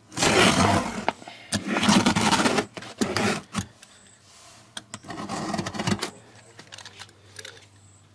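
Utility knife slitting the packing tape along the seam of a cardboard shipping box, in four strokes of about a second each, the last ending about six seconds in.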